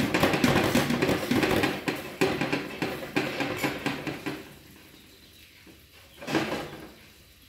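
Dense clatter of many small knocks and rattles, like hard objects being handled, for about four seconds, then dying down, with one short burst of noise about six seconds in.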